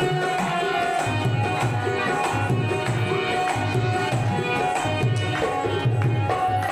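Instrumental break in a devotional folk bhajan: a hand drum playing a steady beat of about two strokes a second under sustained harmonium chords.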